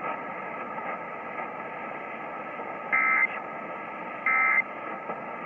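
Emergency Alert System end-of-message data tones: two short, shrill warbling bursts of digital tone about a second apart, over steady hiss of a radio receiver. They mark the end of the alert.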